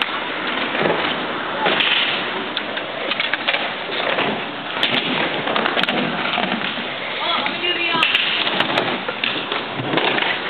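Skateboard wheels rolling over concrete, with several sharp clacks of boards hitting the ground scattered through, and voices in the background.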